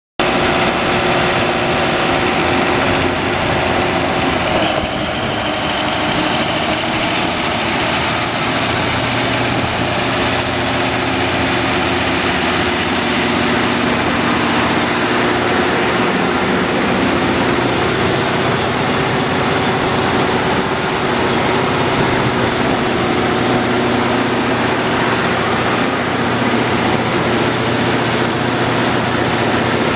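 900 kW Caterpillar diesel generator set running steadily and loudly, with a high whine over the engine noise. The whine rises slightly about five seconds in and then holds steady.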